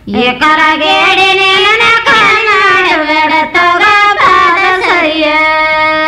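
Women folk singers singing a Kannada wedding song (shobhana pada), the melody bending and sliding in pitch through a long ornamented phrase.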